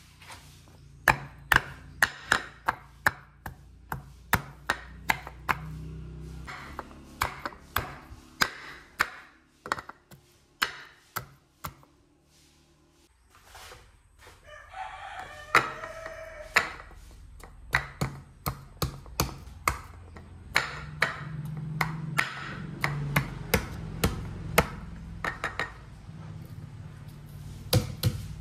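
Blade chopping on a cutting board, sharp irregular strokes about one or two a second, pausing briefly about halfway. A rooster crows once, just after the pause.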